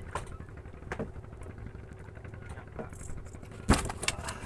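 A steady low engine hum on a fishing boat, with a few scattered clicks and knocks from handling. The sharpest knock comes near the end.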